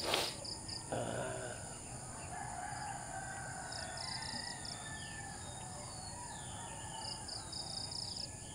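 A rooster crowing once, a drawn-out call starting about a second in, after a brief knock at the very start. Steady high insect trilling and short bird chirps and falling whistles run underneath.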